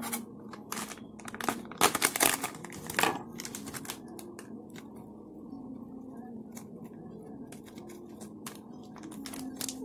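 A packet being torn open and crinkled by hand: sharp crackling rustles in the first three seconds, then softer, scattered handling rustles.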